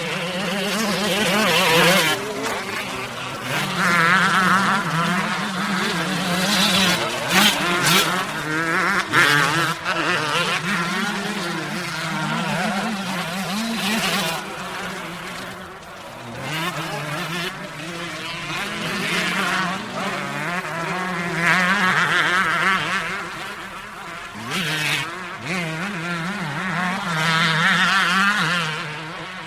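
Motocross dirt bike engine revving and accelerating again and again, its pitch wavering up and down as the throttle is worked. The sound swells and fades several times, with a few sharp cracks partway through.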